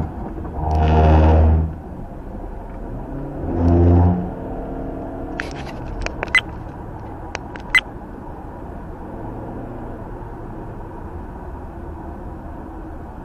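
Car horn sounded twice, each blast about a second long, over steady road noise heard from inside the car. A few sharp clicks come in the middle.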